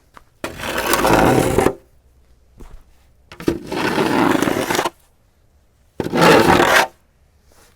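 Plastic snow shovel scraping snow along pavement in three strokes, the last one shorter, with a faint knock of the blade between strokes.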